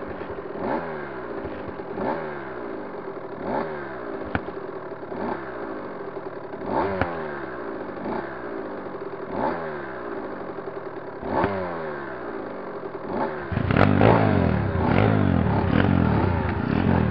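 Enduro dirt-bike engines idling, their pitch rising and falling about every one and a half seconds. About 13 seconds in, a nearby dirt-bike engine gets much louder and revs.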